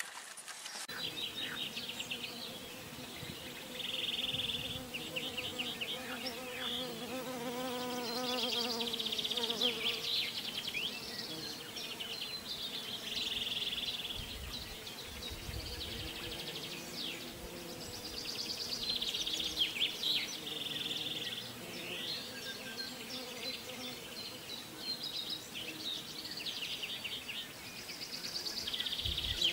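Garden ambience of small birds singing short trilled phrases, repeated every few seconds, with a flying insect buzzing past the microphone, rising and falling in pitch, about seven to ten seconds in.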